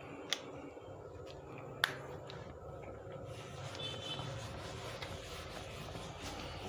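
Whiteboard eraser being rubbed across a whiteboard to wipe off marker, a steady rubbing hiss that begins about three seconds in, with a short squeak. Two sharp clicks come before it.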